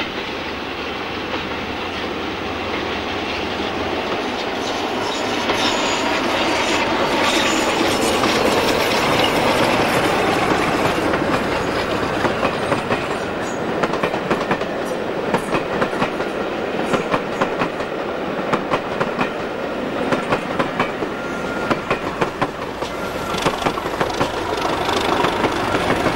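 Diesel train passing close by: the Class 47 locomotive's engine swells over the first few seconds as it approaches and passes. Then the coach wheels clatter rhythmically over the rail joints, and the Class 37 on the rear comes by at the end.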